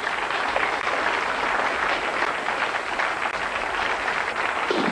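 Studio audience applauding: a steady wash of many hands clapping.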